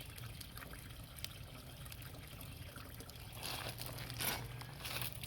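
Garden pond water trickling steadily, with a few louder splashes and sloshes of water a little over three seconds in.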